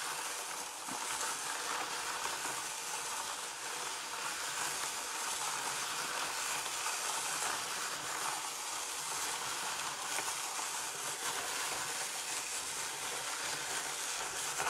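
Tyco Doctor Dreadful Ice Scream Machine toy being turned by its hand crank, its plastic gears and drum running with a steady hiss. The owner puts its poor running down to a bowed-out part that keeps the gears from meshing properly.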